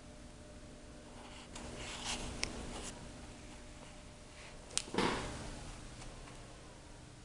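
Light rustling and handling noises over a faint steady hum in a small room, with a sharp click and then a brief scuffing rustle about five seconds in.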